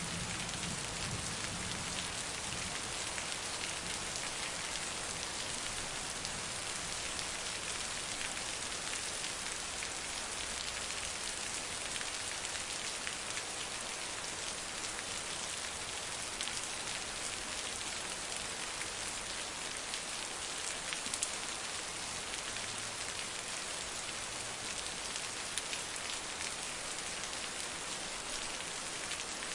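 Heavy rain falling steadily: an even hiss of downpour with scattered drop ticks, a couple of them a little louder in the second half.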